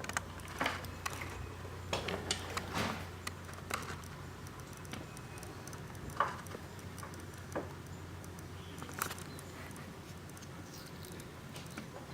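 A scatter of light clicks and taps, bunched in the first few seconds and then sparser, over a low steady hum.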